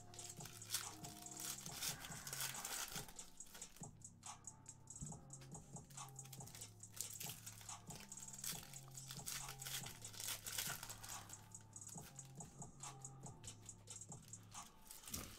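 Foil wrappers of Panini Optic basketball card packs crinkling and tearing as they are opened, with cards being shuffled through by hand, over quiet background music.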